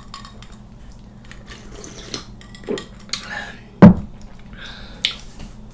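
Tableware being handled at a dining table: a few light clicks and taps, a louder knock a little under four seconds in, and a sharp clink about a second later.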